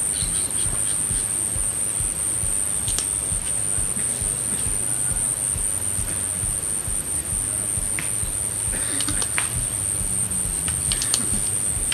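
Insects trilling in one steady, shrill, high-pitched drone, with a few faint short chirps and ticks scattered through it and a low rumble underneath.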